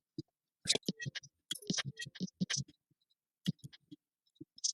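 Irregular clicks and taps from a computer mouse and keyboard, a few to the second, with short pauses between.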